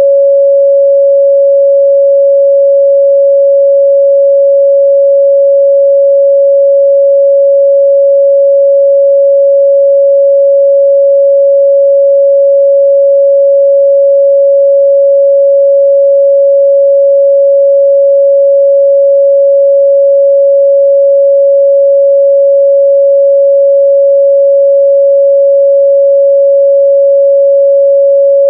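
A steady, loud 557 Hz sine-wave test tone, a single pure pitch held without change.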